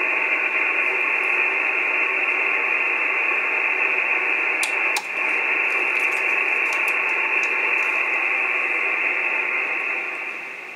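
Steady radio receiver static from an Icom IC-9700 tuned to a satellite's 435 MHz downlink with the contact over, a band of hiss with no voice in it. A couple of sharp clicks come about five seconds in, and the hiss fades away near the end as the main volume knob is turned down.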